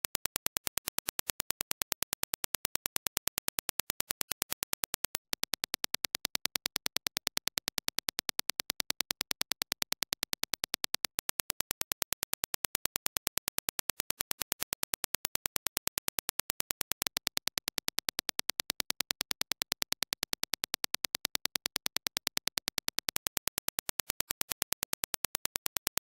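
Reference Dirac impulse test signal: a fast, even train of identical sharp clicks, with one brief break about five seconds in.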